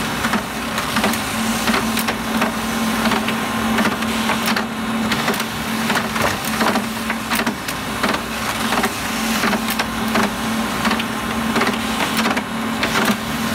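Office printer printing, with pages feeding out one after another: a steady hum with many sharp clicks from the paper feed.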